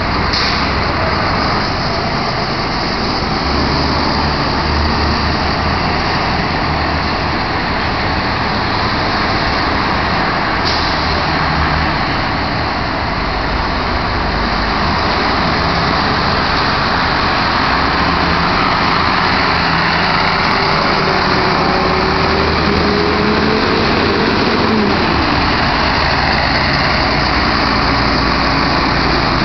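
Diesel school buses driving past one after another at low speed, their engines and tyres running loud and steady. A whine rises and then drops about three quarters of the way through.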